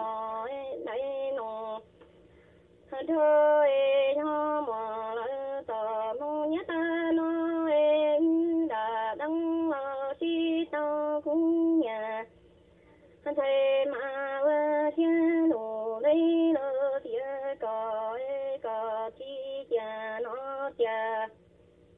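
A woman singing in long phrases of held, wavering notes, broken by two short pauses.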